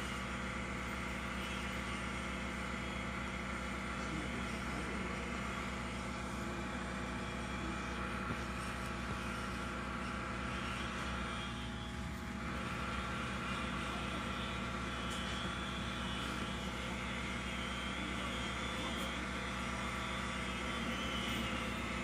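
Steady hum and whine of a stopped electric train's onboard equipment, heard inside the passenger car: several fixed tones that do not change over a constant background noise, the train standing while it waits to depart.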